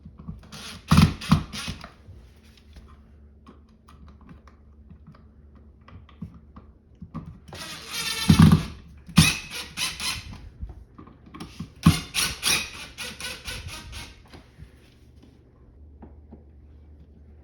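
Hand tools working on electrical device wiring: three bursts of rapid, ratchet-like clicking, the longest in the middle, with quieter handling between.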